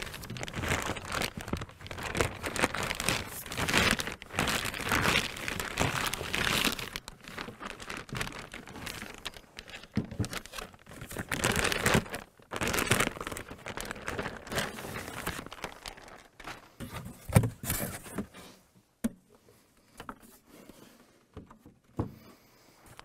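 A large plastic bag crinkling and rustling as it is pulled off an electronic analyzer unit. After that it turns to a few separate knocks and clicks, and is nearly quiet just before the end.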